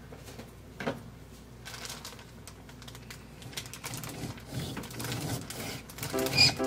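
Light, irregular clicks and rustles from handling a crusty campagne loaf and a bread knife on a cutting board, with one sharper click about a second in. Music begins near the end.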